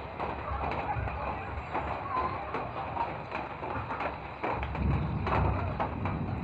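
Steady outdoor hiss of light rain with scattered drips and a few short bird calls. A low rumble comes in about four and a half seconds in and lasts a second or so.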